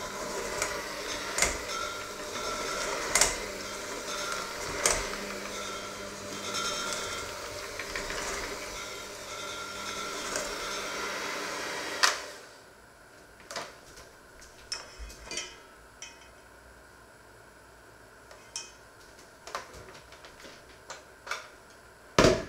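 Electric hand mixer running in a stainless steel bowl of flour dough, its beaters knocking against the bowl now and then. The motor switches off about halfway through. After that come scattered clicks and knocks, with one loud knock near the end.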